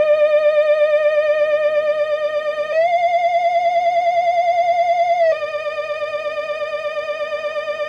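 Looping retro Halloween spooky sound effect: a sustained electronic tone with a fast, even vibrato. It steps up a few notes about two and a half seconds in and drops back about five seconds in.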